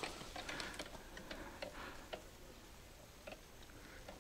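Faint, irregular ticks of a fishing reel's drag giving line as a hooked grass carp pulls on the bent rod.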